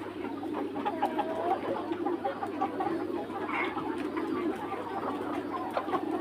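Free-range flock of red Mía chickens, roosters and hens together, clucking and murmuring steadily, with short sharper calls over the chatter about one and three and a half seconds in.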